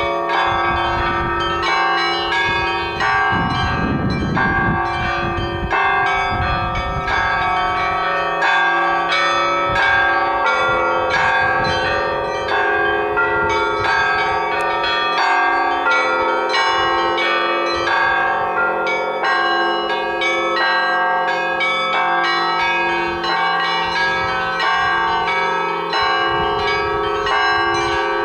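Russian Orthodox church bells ringing a continuous peal: rapid, rhythmic strikes of the smaller bells over the long ringing tones of the larger bells.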